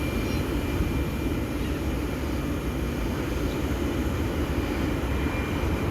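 Sydney Trains electric train running with a steady low rumble and hum, the level even throughout.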